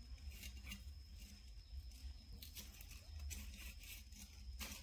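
Faint rustling, scratching and light clicks as baby macaques handle a bunch of artificial flowers and a coconut, with a crisper rustle near the end.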